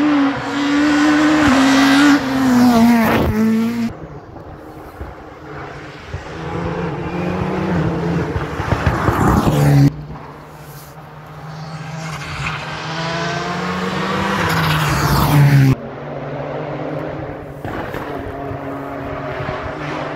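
Rally cars passing one after another at full speed, engines revving hard through the gears, pitch climbing as each car approaches and dropping as it goes by. Each pass cuts off abruptly into the next.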